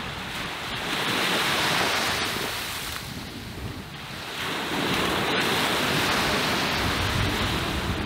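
Surf breaking on a beach in a very strong wind that buffets the microphone. The rush swells twice, about a second in and again from the middle on.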